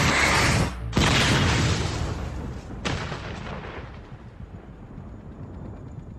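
Mid-air explosion of a small twin-propeller plane hit by a missile: a loud blast already under way, a fresh sudden blast about a second in and another near three seconds in, then a rumble dying away.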